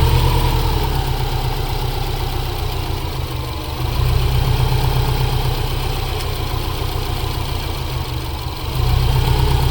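Subaru Forester's flat-four engine idling roughly and unevenly, its level rising a little about four seconds in and again near the end. The car is shaking like a leaf, a sign of the MAP sensor wiring fault behind its no-start trouble.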